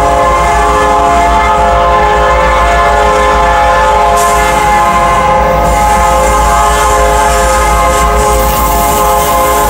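Norfolk Southern diesel locomotive's air horn held in one long, steady, loud blast as the train approaches, with a low rumble underneath.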